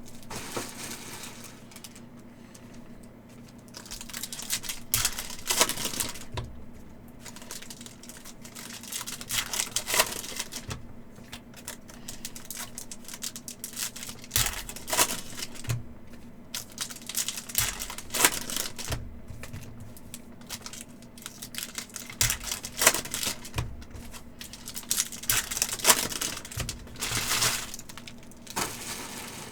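Upper Deck hockey card packs and boxes being opened by hand: wrappers tearing and crinkling and cards being handled, in irregular bunches of sharp rustles and clicks over a faint steady hum.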